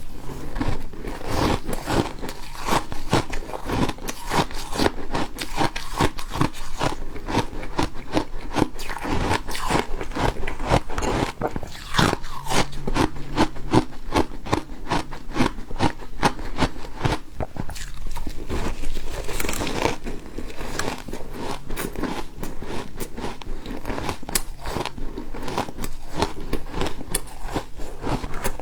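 A person biting and chewing refrozen ice, making a continuous, dense run of crisp crunches and cracks.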